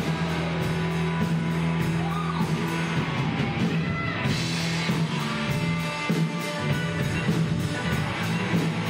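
Live rock band playing, with electric guitar, bass guitar and a steady drum beat.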